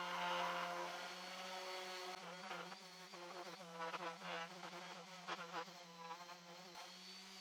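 Electric sander running with a steady hum while its pad rubs over the wood, giving a scratchy hiss that is strongest in the first couple of seconds and then comes and goes.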